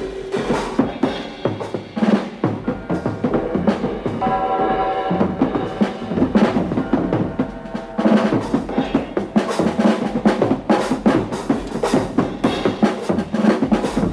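Soundtrack music driven by a busy drum kit and percussion, with fast hits throughout and a few held notes about four seconds in.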